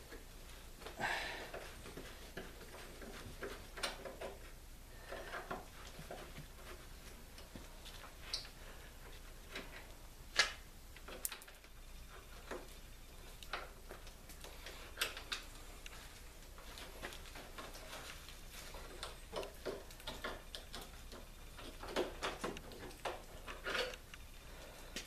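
A metal awl picking and prying at the old canvas and trim along a wooden canoe hull: scattered, irregular small clicks and short scrapes, with a quick run of sharper clicks near the end.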